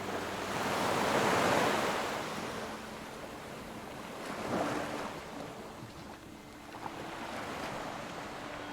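Ocean waves breaking and washing on the shore, with a swell that peaks about a second in and another around four and a half seconds.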